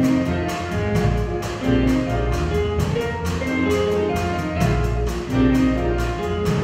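A live band playing: electric guitars over bass and drums, with a steady beat.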